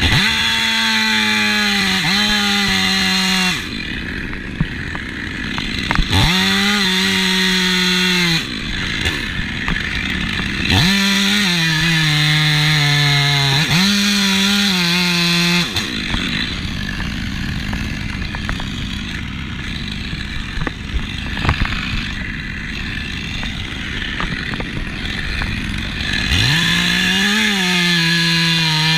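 Chainsaw engine run up to high revs in several long bursts, its pitch sagging now and then as it comes under load in the wood. Between the bursts are rougher, lower stretches, the longest in the middle.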